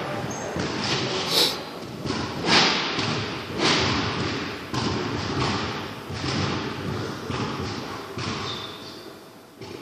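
A series of dull thumps, about one a second through the first half, echoing in a large sports hall over the hall's steady background noise.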